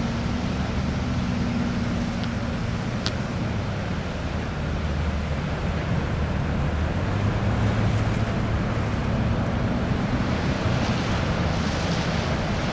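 Ocean surf breaking on a harbour bar: a steady rush of waves, with wind buffeting the microphone as a low rumble. The surf grows louder near the end as a big wave breaks.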